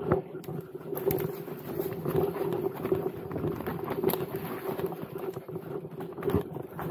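Mountain bike clattering down a rocky forest trail: frequent sharp knocks and rattles as the tyres and frame hit rocks and roots, over a steady low hum.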